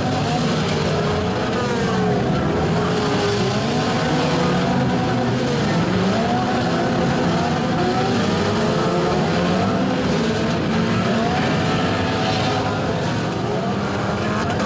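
Several four-cylinder hatchback demolition derby cars' engines revving at once, their pitches rising and falling over one another.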